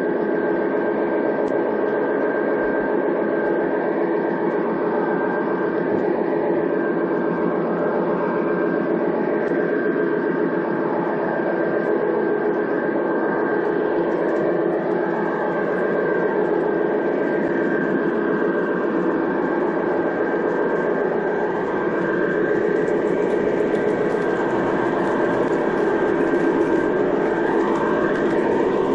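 G-scale model diesel train running along the track, its onboard sound unit playing a steady diesel engine sound, with a steady high tone over it.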